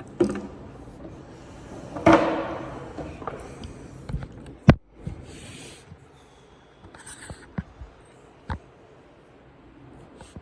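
Scattered handling noises: sharp clicks and knocks with some rustling, and a louder short burst about two seconds in.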